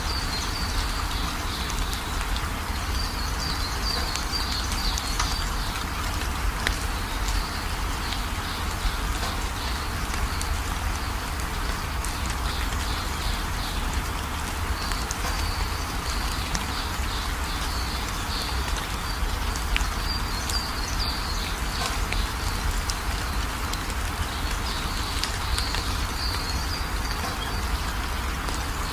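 Steady rain-like hiss with a low rumble, and repeated high chirping that comes and goes in patches.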